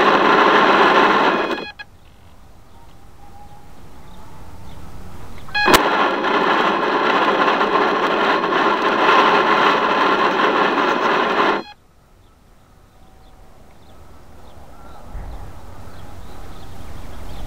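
A small electric motor running close to the microphone, buzzing with a crackly whine. It runs for about a second and a half at the start, then switches on again with a click and runs for about six seconds before cutting off abruptly. In between, a fainter hum slowly grows louder.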